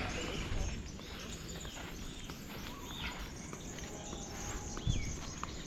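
Outdoor tropical ambience with birds calling: several short whistled notes that slide up and down, over a faint steady hiss of insects.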